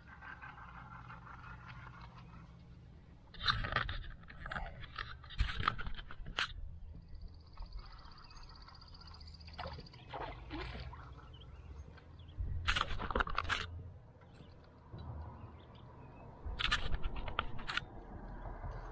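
Intermittent scrapes and clicks of handling on a plastic paddle boat, in short clusters over a low steady rumble, as a bite is worked.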